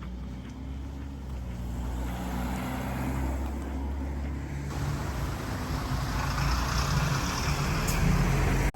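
Vehicle engine running steadily with a low hum, joined about halfway through by a louder rushing noise; it cuts off abruptly just before the end.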